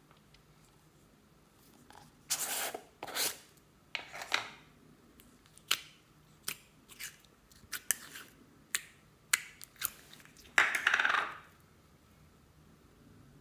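A plastic tub of blue glitter slime being handled, with short clicks and sticky squishes as fingers press into the slime. A longer squelch comes near the end as the slime is pulled out of the tub.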